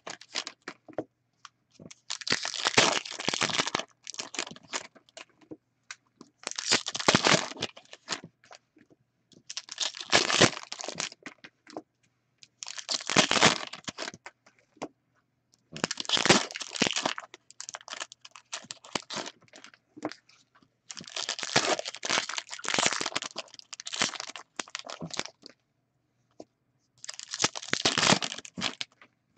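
Trading card packaging being torn open and crinkled by hand: about nine bursts of tearing and crinkling, each one to a few seconds long, with short pauses between.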